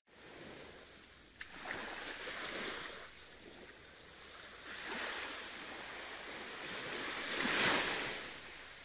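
Sea waves washing ashore in three slow surges of surf, the loudest near the end, with a small click about a second and a half in.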